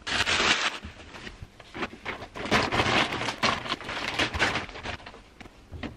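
Rustling and crinkling of a plastic bag and clothes being handled, in uneven swells, loudest just after the start and again through the middle.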